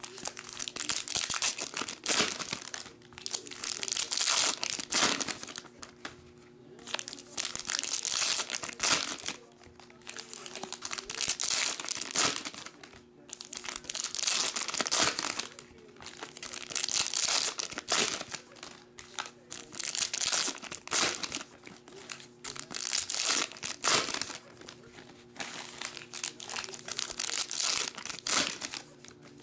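Foil wrappers of Donruss Optic football card packs being torn open and crinkled by hand, one pack after another, in repeated bursts of crinkling every few seconds.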